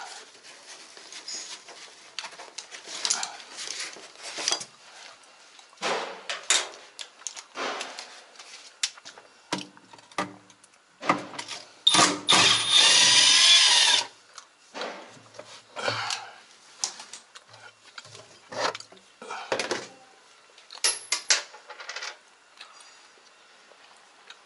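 Scattered knocks and clicks of screws and metal or plastic parts being handled while a washing machine is dismantled. A power drill-driver runs with a loud whir for about two seconds midway.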